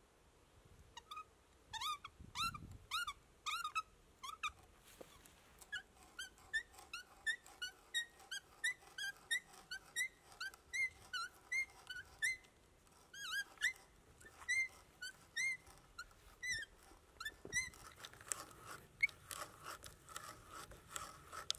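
Hand brace boring an auger bit into a log: a rhythmic squeak about twice a second as the crank turns, over the crunch of the bit cutting into the wood. Near the end the squeaks give way to a faster, denser crackle.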